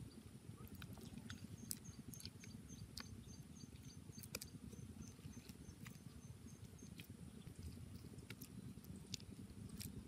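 Quiet, soft wet squishing and patting of bare hands pressing and smoothing wet mud onto the rim of a clay pit furnace, with scattered small clicks. A faint high chirp repeats about three times a second for several seconds in the background.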